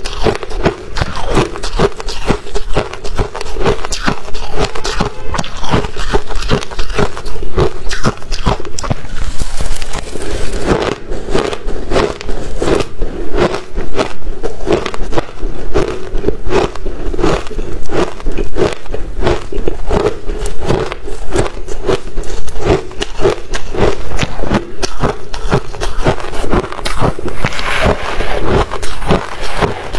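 Freezer frost being crunched and chewed close to the microphone: a dense, unbroken run of crisp, irregular crunches. A metal spoon scrapes and scoops through the frost in the tub now and then.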